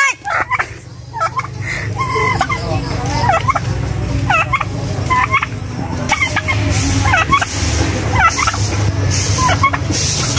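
Domestic tom turkey gobbling over and over, short warbling calls coming every second or so.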